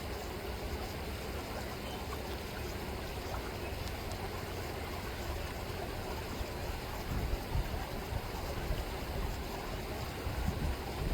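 River water rippling steadily, with some low rumbling bumps about two-thirds of the way in and again near the end.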